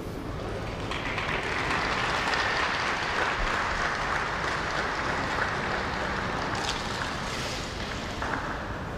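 Audience applauding, a dense steady clapping that comes in about a second in and eases slightly near the end.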